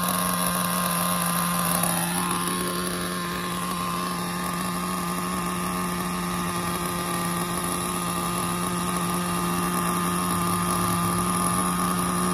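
Small glow-fuel engine of an XTM X-Cellerator nitro RC monster truck idling steadily on nitro-free fuel of methanol and castor oil, while it is being tuned at rest.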